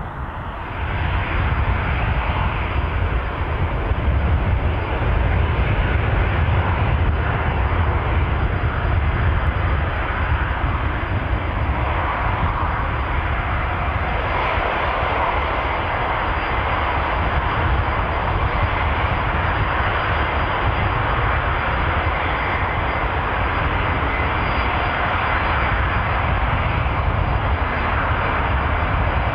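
Jet airliner engines running, loud and steady from about a second in, with a faint high whine above the noise.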